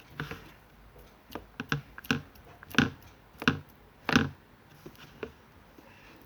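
Slime being squeezed and pressed by hand, giving a run of irregular sticky clicks and pops, the loudest in the middle.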